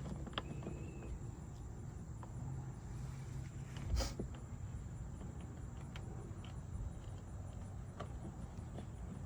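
Crickets chirping steadily in the background, with a few faint clicks and one louder knock about four seconds in.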